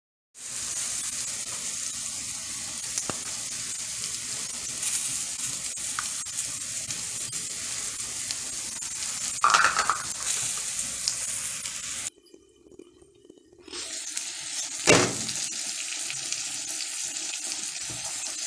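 Omelette of eggs, bitter melon and cheese frying in a nonstick pan: a steady sizzling hiss. The sound drops out for about a second and a half past the middle, then the sizzle resumes with a single sharp knock soon after.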